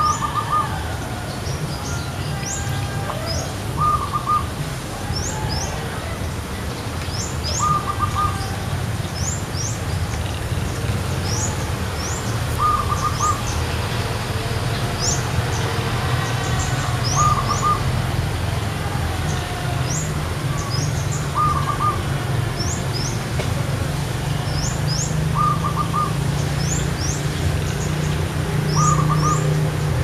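Zebra dove (Geopelia striata) calling: a short stuttering coo repeated about every four seconds, over frequent high thin chirps and a low steady rumble.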